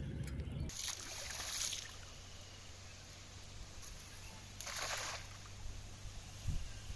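Water splashing and trickling in two short spells, about a second in and again about five seconds in.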